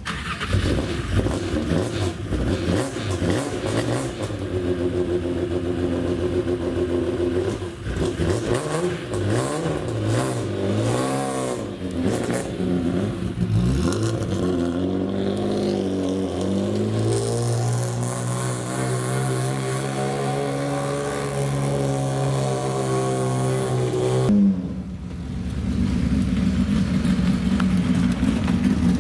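Historic race car engines at a hillclimb. One engine revs up and down through gear changes, then pulls hard with a long, steadily rising pitch that cuts off abruptly. A second engine follows, running at a steadier pitch.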